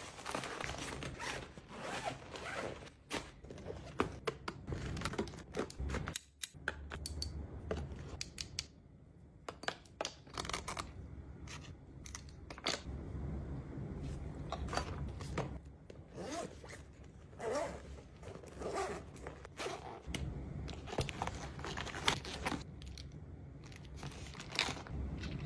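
Hands packing toiletries and small items into fabric and clear-vinyl zippered cosmetic pouches: irregular rustling, light clicks and taps of items being set down, and zips being run.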